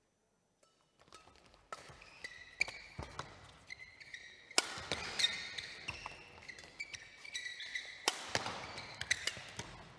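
Badminton doubles rally: sharp racket strikes on the shuttlecock that begins about a second in, mixed with squeaks of court shoes on the sports-hall floor, each hit echoing in the large hall.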